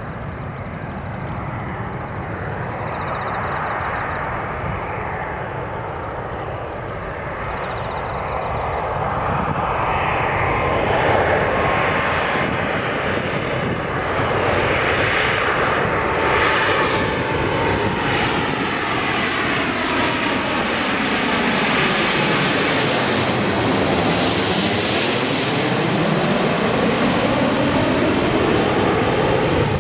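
Boeing 777-300 airliner's twin jet engines on landing approach. The rushing jet noise grows louder as the aircraft comes in low, and its tone sweeps down and back up as it passes directly overhead about three-quarters of the way through.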